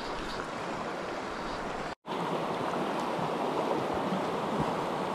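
Shallow rocky mountain stream running over stones, a steady rush of water. It cuts out for a split second about two seconds in and comes back slightly louder.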